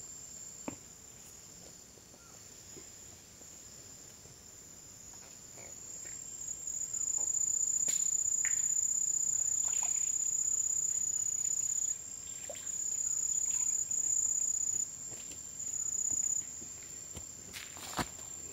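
Crickets trilling: a steady high-pitched insect drone that swells about six seconds in and breaks off briefly a few times. A few faint clicks and knocks sound over it.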